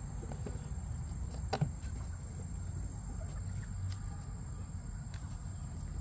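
Goats browsing leaves off a branch, tearing and chewing, with one sharp snap about a second and a half in, over a steady low rumble.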